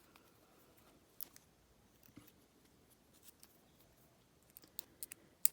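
Scattered small metallic clicks and taps of padlock parts and tools being handled while the lock is taken apart, coming closer together in the last second with one sharper click near the end.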